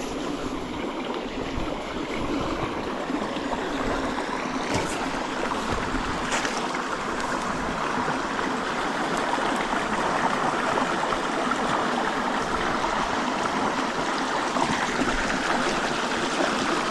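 Small stream running steadily, a continuous rush of flowing water with a couple of faint ticks a few seconds in.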